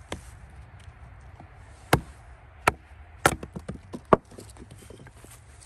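Fiskars hatchet chopping and splitting small pieces of dry, seasoned wood on a chopping block: five sharp wooden strikes, the last the loudest, with a quick run of lighter knocks after the fourth.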